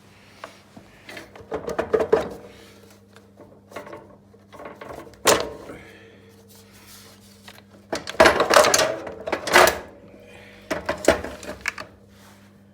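Irregular clunks, knocks and scraping of metal and plastic parts being handled and worked on during disassembly of a chop saw, in bunches with pauses between, the heaviest run about eight to ten seconds in. A faint steady hum sits underneath.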